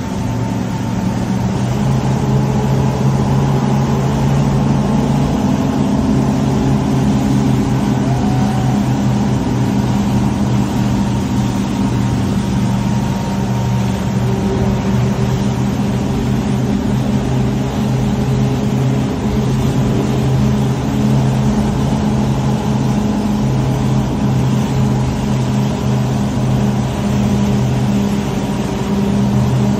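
Motorboat engines running steadily at high planing speed, a constant droning hum, over the rush of water and spray along the hull and wind noise.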